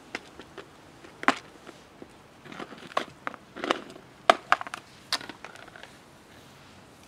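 Plastic food container of dry cat food being handled and opened: a string of sharp clicks and crackly rustles, the loudest about four seconds in.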